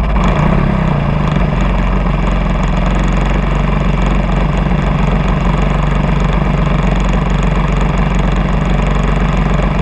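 Radio-controlled model airplane's engine idling steadily, heard close up from on board the model as it sits on the ground.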